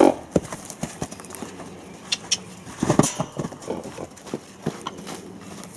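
Hoofbeats of a wild horse trotting and cantering on soft, muddy ground: irregular knocks, with a quicker cluster about three seconds in.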